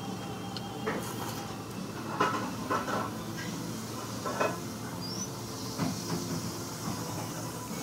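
A bowl of ramen being eaten with chopsticks and a spoon: a handful of short eating noises spaced a second or so apart, over a steady background hum.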